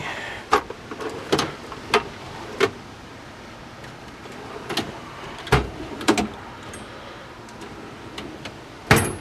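Tools and drawers of a steel tool cart being handled: scattered sharp clicks and clanks, about eight in all. The heaviest, deepest knock comes about five and a half seconds in, and another loud one comes near the end.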